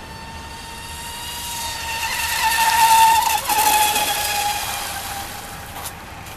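Electric RC race boat's TP Power 3670 2100 kV brushless motor and propeller running at full speed: a high steady whine over spray hiss. The whine grows loud as the boat passes close about three seconds in, drops slightly in pitch as it goes by, then fades.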